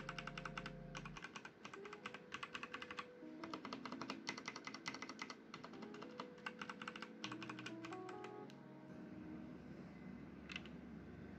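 Rapid typing on a Machenike K500 mechanical keyboard: runs of clacking keystrokes that stop about eight and a half seconds in, then one more keypress near the end. Soft background music plays underneath.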